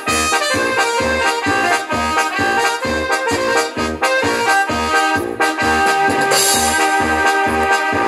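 Latin dance music with an accordion lead and brass over a steady bass beat, about two beats a second.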